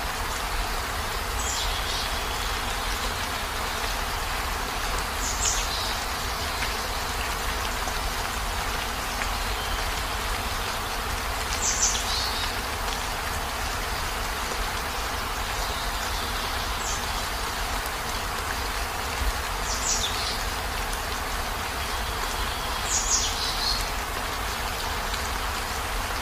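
Steady heavy rain with a low rumble beneath it. A short, high chirp that falls in pitch sounds every few seconds, about six times.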